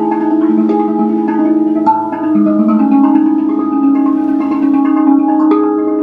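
RAV steel tongue drum played with mallets: struck notes that ring on and overlap into a slow, flowing melody, with a few sharper strikes standing out, one about two seconds in and another near the end.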